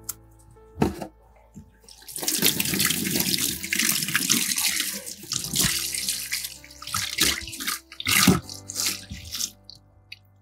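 Kitchen tap running into a stainless-steel sink as tomatoes are rinsed under the stream. It starts about two seconds in and stops shortly before the end, with a few knocks as they are handled.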